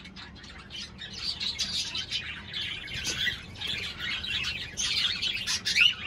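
Cockatiels chirping continuously: many short, high calls overlapping, with a rising whistle near the end.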